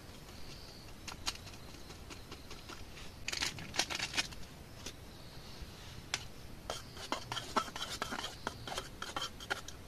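Clicks, light knocks and scrapes of camp cookware and utensils being handled, in two short flurries: one about three seconds in and a longer one from about seven seconds in.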